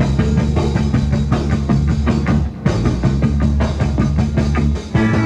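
Rock and roll band playing an instrumental stretch between sung lines, the drum kit keeping a steady beat over the bass.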